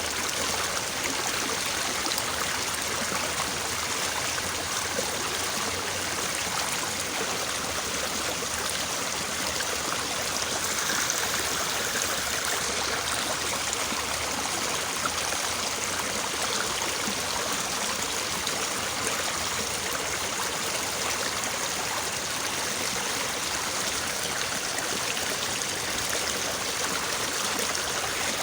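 Small, fairly fast-flowing stream babbling steadily over stones.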